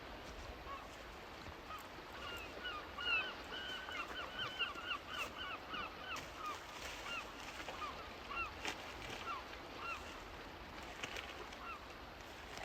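Birds calling: a long run of short, repeated calls, coming thick and fast for a few seconds and then spreading out before stopping, over a faint steady background hiss.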